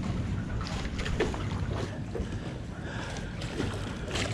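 Steady low wind and water noise around a small boat, with a few short, faint clicks and knocks.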